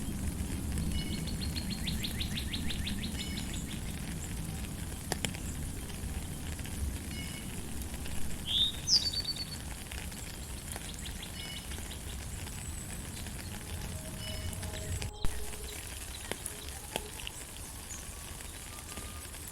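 Forest birds chirping and calling over a steady background of rain. A fast trill comes near the start, and a loud sweeping call about nine seconds in. The sound cuts out for an instant about fifteen seconds in.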